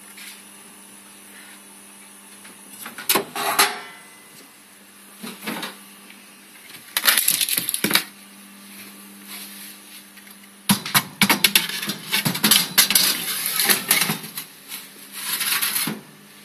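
Clattering and knocking of a metal baking tray and oven being handled: separate knocks in the first half, then a dense run of rattles and clanks from about 11 seconds in. A steady low hum under the first part stops as the clattering begins.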